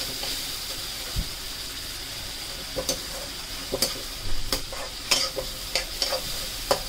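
A spiced onion, tomato and pea tempering sizzles in a kadai on the flame while a metal spoon stirs it, clicking and scraping against the pan in irregular strokes. The spoon strokes are sparse for the first few seconds and come more often after that.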